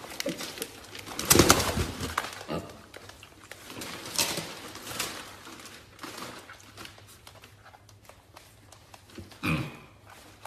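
Piglets grunting, with knocks and rustles as one scrambles out of a cardboard gift box; the loudest burst is about a second and a half in.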